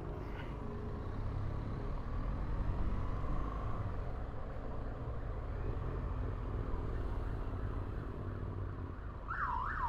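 BMW R1200GS boxer-twin engine running at low speed in city traffic, a steady low rumble heard from the bike itself. Near the end a police siren starts, wailing quickly up and down about three times a second.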